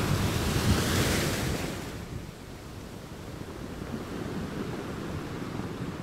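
Ocean surf on a beach. A wave breaks in a loud hissing surge over the first two seconds, then the water settles into a lower, softer wash.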